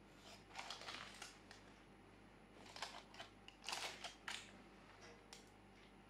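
Several faint, short rustles of cloth and paper as a tea towel and knitted cover are pulled off a baking pan of focaccia lined with baking paper.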